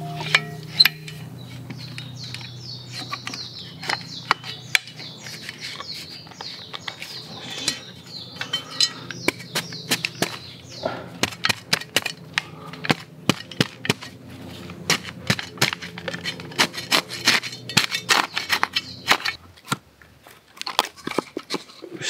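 Small hand tool striking and scraping into dry forest soil, digging a fire pit: a run of sharp, irregular knocks and scrapes, several a second.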